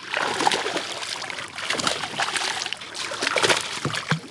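Hooked smallmouth bass thrashing at the surface, a run of irregular loud splashes and sloshing water close by.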